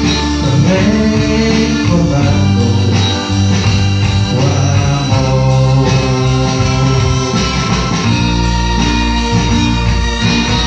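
Instrumental passage of a karaoke backing track for a romantic ballad, held keyboard chords with guitar, playing loudly with no lyrics sung.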